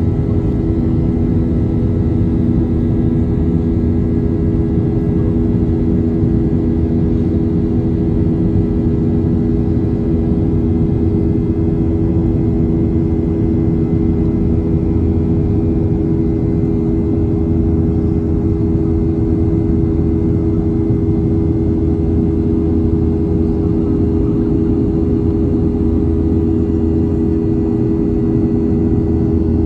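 Cabin noise of a Boeing 737-800 in its climb after takeoff: its CFM56-7B turbofan engines and the airflow make a steady drone with several low, steady hums.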